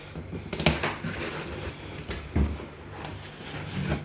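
Items being handled, with two short knocks, one under a second in and a louder one about two and a half seconds in, over a low steady hum.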